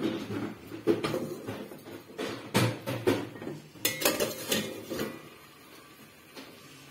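Wire spider strainer clinking and knocking against a stainless steel stockpot as boiled cassava is scooped out of the water, with several sharp knocks over the first five seconds before it goes quieter.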